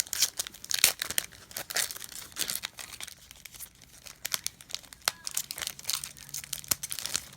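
Foil booster pack wrapper of Pokémon trading cards crinkling and tearing as it is opened by hand, in a quick run of irregular crackles.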